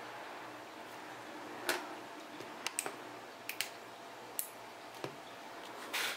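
Short sharp clicks of a small red-lit 12 V toggle switch being flipped on and off by hand, about eight clicks spread irregularly, some in quick pairs, switching a solar charge controller on and off. A longer scraping handling noise comes near the end.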